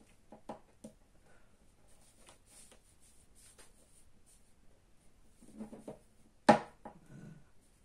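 Faint scratching and small clicks of an opening tool being worked along the seam of an iPod Video's case, with one sharp click about six and a half seconds in.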